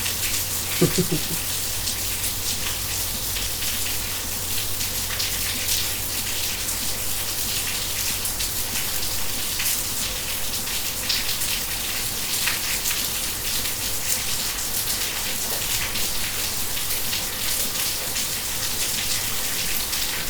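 Steady rain falling, with many separate drops hitting sharply close by.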